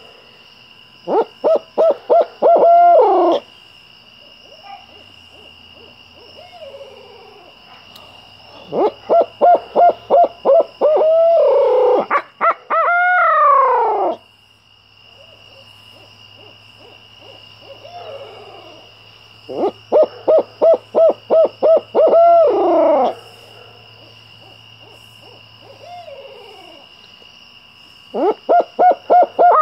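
Hooting-stick owl call blown in four loud bursts. Each burst is a quick run of about half a dozen hoots that ends in a long, drawn-out falling hoo. Fainter falling owl hoots come in the gaps between the bursts.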